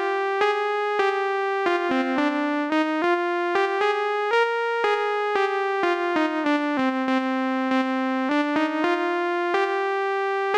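Instrumental keyboard music: a slow melody of held notes with a bright electric-piano-like tone, about two new notes a second, over a lower line that moves in step.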